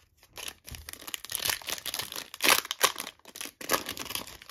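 Wrapper of a 2023 Topps Chrome trading card pack crinkling and tearing as it is pulled open by hand, loudest about halfway through.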